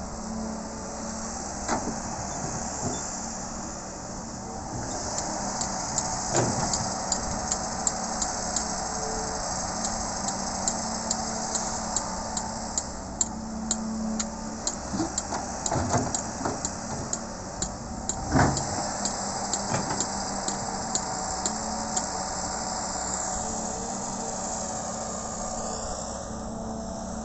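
John Deere 595D wheeled excavator's diesel engine running steadily under load as it digs and loads soil, with repeated knocks and clatter of earth, stones and the steel bucket, the loudest knock about two thirds of the way through.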